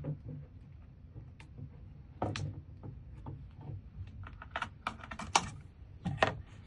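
Scattered small clicks and taps of lock parts being handled and the lock's cable connectors being pushed together, bunched into a quick run of clicks past the middle.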